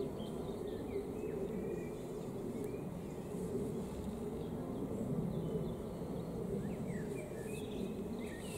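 Garden ambience: a steady low drone of buzzing insects, with scattered short high bird chirps over it.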